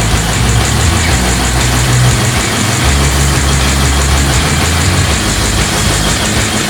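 Cummins 2000 kVA diesel generator set running steadily with no load during its warm-up, a loud continuous engine sound with a deep rumble.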